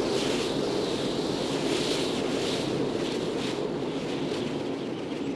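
Wind gusting against a moving car over a steady low rumble of road noise. The hissy gusts swell and fade, then ease off after about four seconds.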